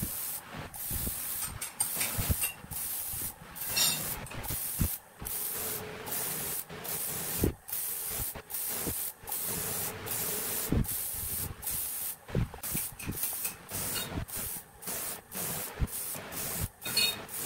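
Compressed-air spray gun hissing in many short bursts with brief gaps, spraying a clear finish onto a wooden vase.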